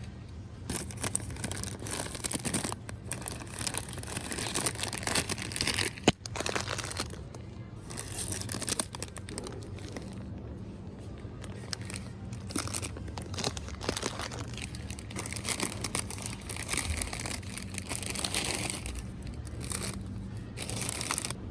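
Crinkling and rustling of handled material, with one sharp click about six seconds in.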